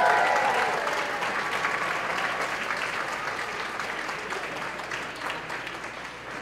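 Audience applauding, loudest at first and slowly dying away.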